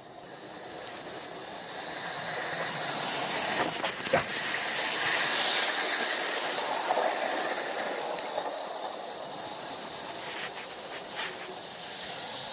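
Lionel 2029 2-6-4 O-gauge toy steam locomotive running on three-rail track, a steady noisy running sound that swells as it comes close about five seconds in, eases off, and grows again near the end. A few sharp clicks stand out along the way.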